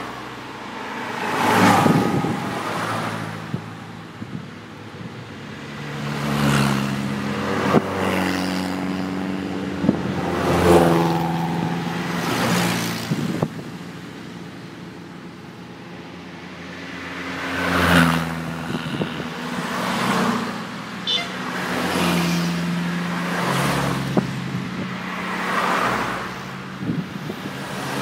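A procession of classic Renault cars driving past one after another, about ten in all. Each engine swells as it nears and fades away, its note dropping in pitch as it goes by. Quieter gaps come at the start and about halfway through.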